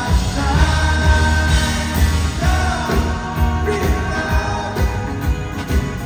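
Live rock band playing, with a man singing lead over strummed acoustic guitar, electric guitar, a strong bass line and drums.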